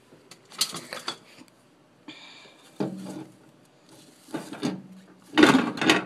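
Kitchen handling noise: a plate and utensils clattering and scraping at an open microwave in a few separate bursts, the loudest near the end.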